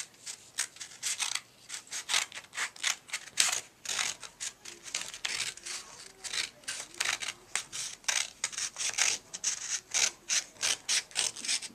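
Scissors snipping through a folded sheet of paper along the crease: a steady run of short, crisp snips, about three a second.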